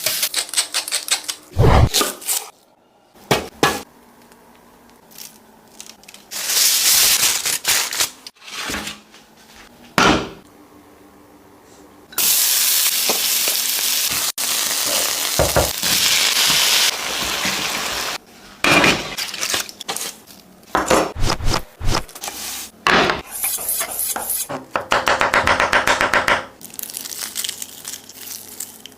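A string of cooking sounds: food sizzling in a pan for several seconds, with knocks, clinks and scrapes of pans and utensils, and a run of rapid, even taps near the end.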